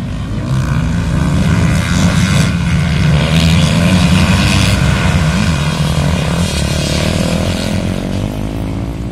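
Motocross bike engines running hard, growing louder to a peak about four seconds in and then fading, as bikes pass by.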